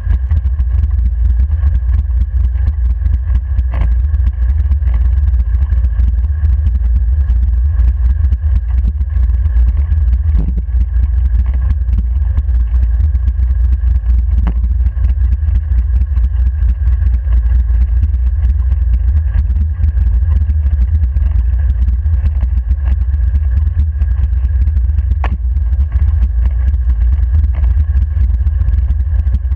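Racing wheelchair rolling along a wet track, heard through a camera mounted on its frame: a loud, steady low rumble of wind and tyre noise, with a faint steady high hum and a few brief knocks.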